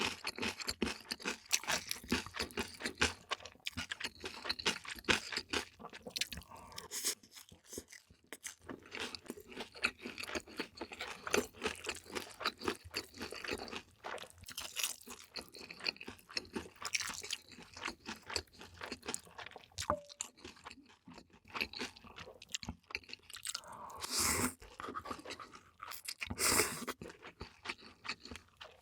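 Close-miked eating sounds: steady irregular chewing and crunching of food in the mouth, with a couple of louder wetter stretches near the end.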